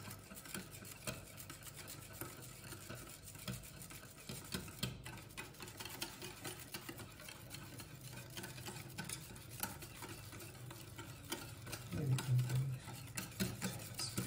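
Wire whisk beating yogurt and cream in a ceramic bowl: a fast run of soft swishes and light ticks of the wires against the bowl. A brief low hum rises near the end.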